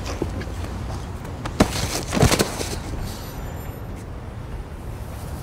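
Low steady rumble of night street ambience in a film soundtrack, with a single sharp knock about a second and a half in and a short cluster of knocks a little over two seconds in.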